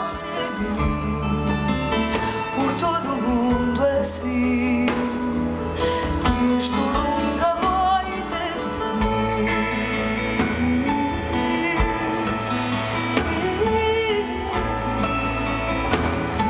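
A woman singing live with a band, her voice wavering with vibrato over a steady bass line, guitars and percussion.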